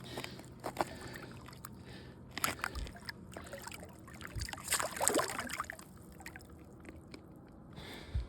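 Light water sloshing and a few small splashes at the water's edge, with scattered rustling and clicks of handling.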